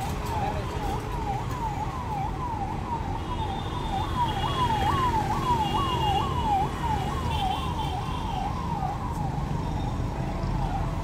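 Emergency-vehicle siren on the road in a fast wailing yelp, each sweep gliding down about twice a second. It grows louder toward the middle and fades near the end as the vehicle passes, over a low rumble of traffic.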